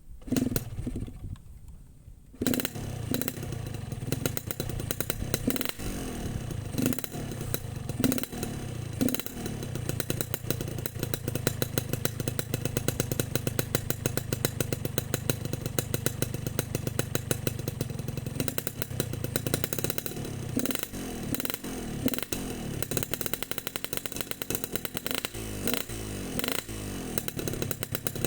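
Yamaha RX-King 135 cc two-stroke single-cylinder motorcycle engine sputters briefly, then catches about two and a half seconds in and runs with an uneven popping beat, revved up and down several times near the end. The engine is tuned for the deep 'ngorok' (snoring) exhaust note.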